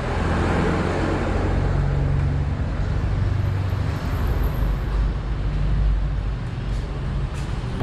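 Steady low rumble of motor-vehicle traffic noise.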